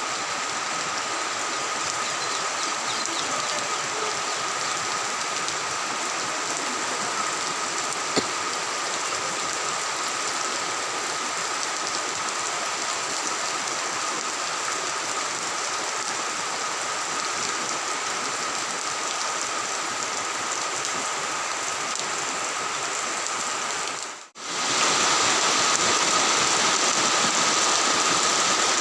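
Steady rain falling, an even hiss, with a thin steady high whine running through it. It breaks off briefly about 24 seconds in and comes back a little louder.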